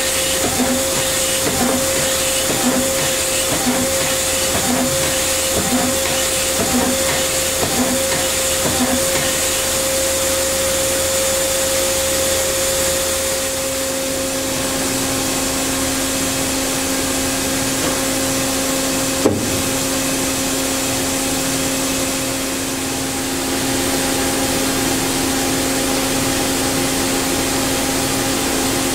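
Daewoo Puma 2000SY CNC turning center running with a steady mechanical whir and hum. For the first several seconds a pulse beats about once a second. About halfway through, the hum shifts to a lower tone, and a single sharp click comes about two-thirds of the way in.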